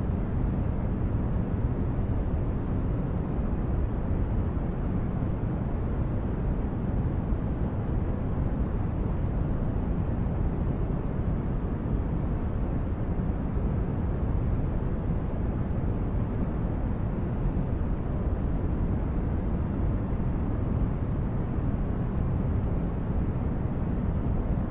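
Sci-fi spaceship ambience: a steady, deep rumbling noise like brown noise, heaviest in the bass, with no distinct events or changes.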